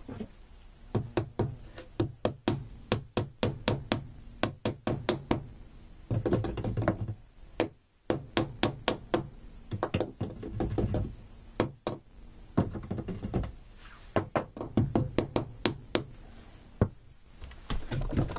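Irregular knocking and tapping inside a wall, many sharp knocks a second in clusters with some duller thuds, as electrical cable is fed down through the wall cavity toward the outlet below.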